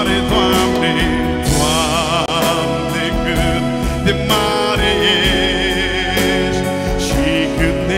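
Male vocalist singing a Romanian worship song with heavy vibrato and melismatic runs into a microphone, over electronic keyboard accompaniment with a sustained bass.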